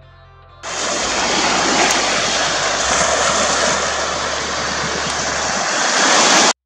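Sea waves and wind heard through a camera's built-in microphone: a loud, steady rushing noise that starts about half a second in and cuts off abruptly near the end.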